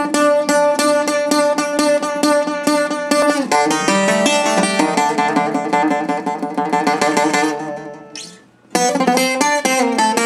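Four-course Greek bouzouki played with a pick in fast, rapidly repeated picked notes. Near the 8-second mark the notes die away into a short pause before the picking starts again.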